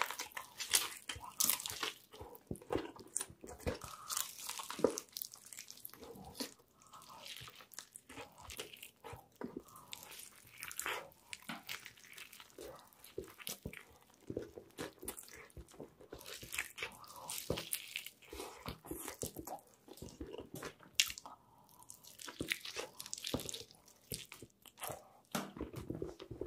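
Crunchy bite into a fried chicken sandwich with a thick breaded crust, then chewing with irregular crackling crunches.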